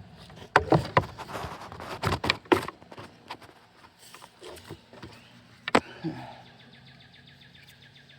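Handling noise of wire being worked through a homemade wire-stripping jig: a quick run of clicks and scrapes over the first three seconds, then one sharp click a little before six seconds.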